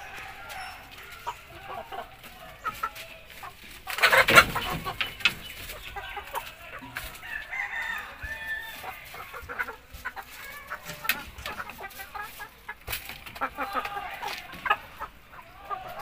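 Chickens clucking throughout, with a rooster giving one loud, short crow about four seconds in.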